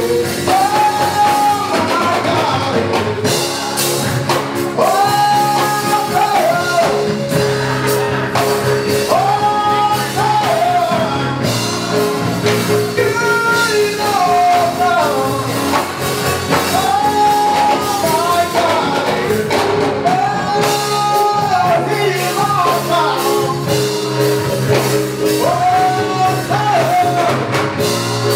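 Live gospel band playing, with two electronic keyboards and a drum kit, and a lead singer at the microphone repeating short sung phrases about every four seconds.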